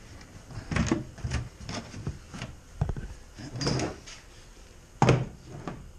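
A string of knocks, thumps and scrapes as gear is handled and set down in the kayak, with the loudest knock about five seconds in.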